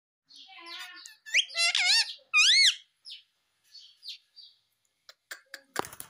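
Indian ringneck parakeet vocalising close up: a short run of speech-like chatter, then several loud, high-pitched arching squawks, then softer chatter. A few clicks and one sharp knock come near the end.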